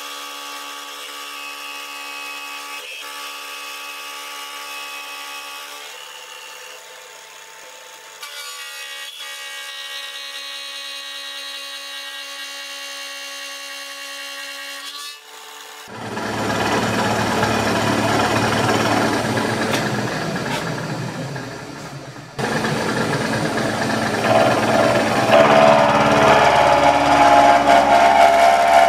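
Turret mill running with a steady whine for about the first fifteen seconds. Then the face-mill cutter bites into the edge of the steel plate: a loud, rough milling cut that gets louder twice toward the end.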